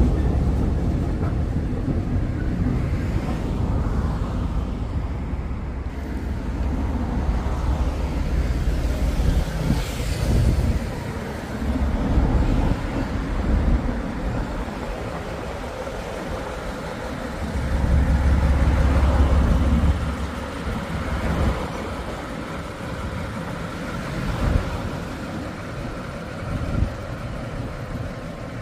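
Two Class 14 diesel-hydraulic shunting locomotives running together, their Paxman diesel engines giving a low rumble that rises and falls. The rumble is loudest about two-thirds of the way in.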